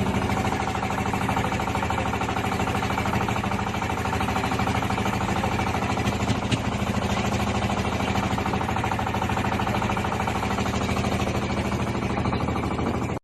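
An engine running steadily and loudly with a fast, even beat.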